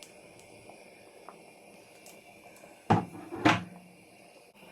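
Two knocks about half a second apart, from a tin or container being handled on a kitchen surface.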